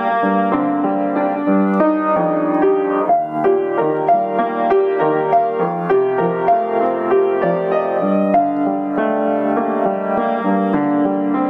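Background music played on piano, a continuous run of notes over held chords.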